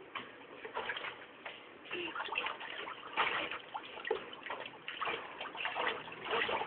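Water splashing and sloshing in a washing machine tub as a small child bathes and moves about in it, in irregular splashes.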